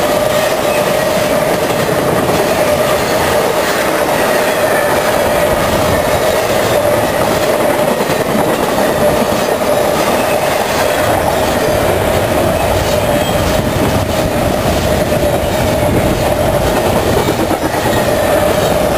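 Intermodal freight train of double-stack well cars rolling past close by: a steady, loud rumble and rattle of wheels on rail, with one held squeal running through it.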